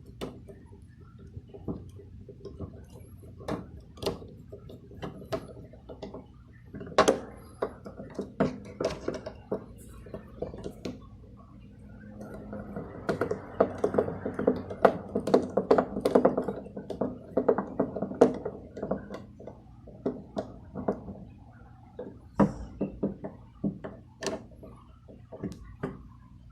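Irregular clicks, taps and knocks of tools and parts being handled during car door repair work, with a denser run of rapid clattering in the middle.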